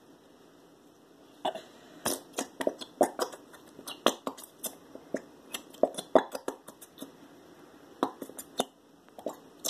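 Plastic glitter glue bottles squeezed upside down, giving a run of irregular sharp pops and clicks as the thick glue is forced out. It starts about a second and a half in.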